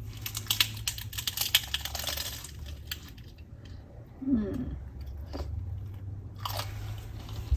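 Crunching bite into a deep-fried spring roll, its fried wrapper still crisp: a quick run of crackles for about two and a half seconds, then a few single crunches while chewing.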